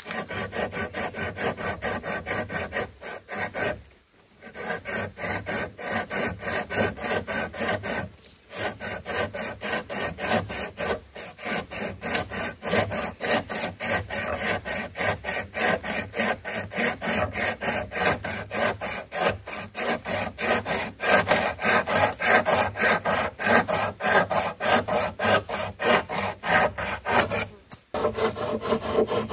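Hand saw cutting wood in quick, even strokes, about three a second, with a few brief pauses.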